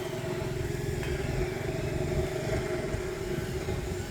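An engine running steadily, a low rumble with a few held tones.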